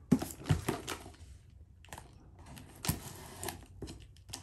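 A cardboard box handled and turned over with a few sharp thumps, then a knife cutting through the packing tape on the box with scratchy, rasping noise and light taps.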